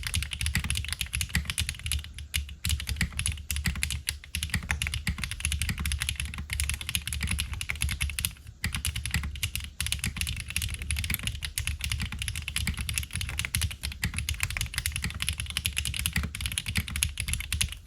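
Continuous fast typing on a FROG MINI custom mechanical keyboard in HHKB layout, fitted with HMK Candy Red switches and GMK Blue Samurai keycaps. The keystrokes come as a dense stream with a deep bottom-out, broken by short pauses about two seconds in and about eight and a half seconds in.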